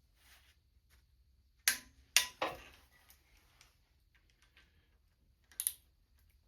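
Sharp metal clicks from a torque wrench and socket working the intake manifold bolts on a small-block Chevy V8: three clicks about two seconds in and a quick double click near the end.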